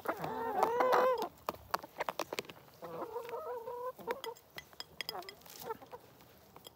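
Hens clucking as they feed, with a loud warbling call in the first second and a second, steadier call about three seconds in. Quick sharp taps of beaks pecking at the feed dish and ground run through it.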